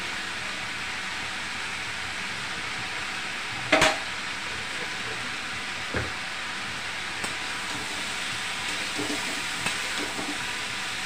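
Potatoes and cluster beans sizzling steadily in oil in a steel kadhai. About four seconds in there is a sharp metal clatter, and about six seconds in a single knock. Near the end a spatula stirs and scrapes through the vegetables.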